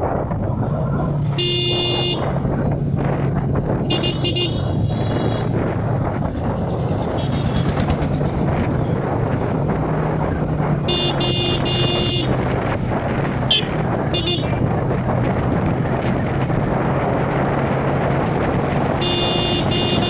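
Motorcycle riding along at a steady pace, its engine running evenly under road and wind noise, with the horn sounded in several short blasts, one near the start, one about four seconds in, a longer run of honks past the middle, and another near the end.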